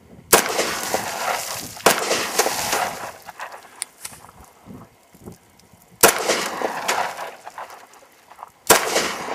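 .45 ACP pistol firing four shots with 185-grain jacketed hollow points at water-filled milk jugs: two shots about a second and a half apart, then a pause of about four seconds, then two more, each shot ringing out for a second or more.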